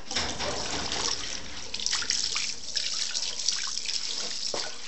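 Running, splashing water: a steady hiss with irregular spurts that starts suddenly and dies away just before the end.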